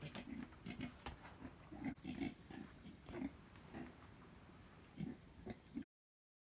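Domestic pigs grunting in many short, irregular grunts, cutting off abruptly near the end.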